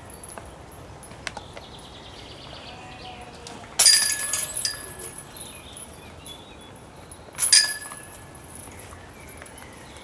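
Disc golf basket chains jangling twice as putts strike them, each a sudden metallic crash with ringing that dies away, the first about four seconds in and the second, shorter, about three and a half seconds later.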